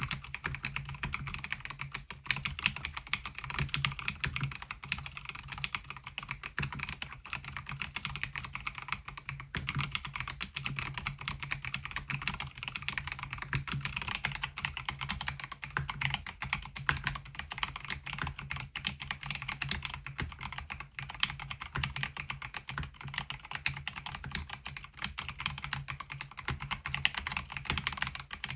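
Continuous fast typing on a MelGeek Mojo68 mechanical keyboard fitted with MOA-profile keycaps: a dense, even stream of keystroke clacks with no pauses.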